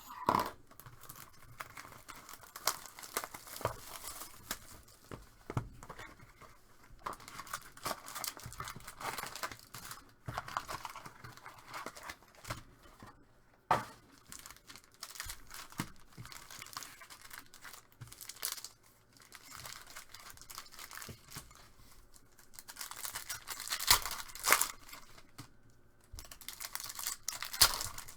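Trading-card packaging being torn open and crinkled as a Topps F1 hobby box and its card packs are opened: irregular ripping and rustling, with the loudest tears near the end.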